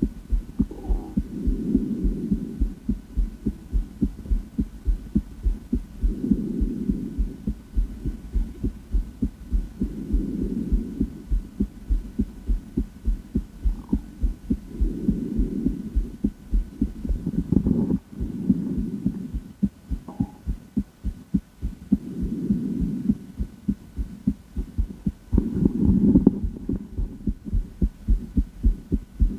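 A woman's heartbeat heard through a stethoscope: a steady run of low, dull lub-dub thuds. A softer swell of noise rises and falls about every four seconds beneath the beats.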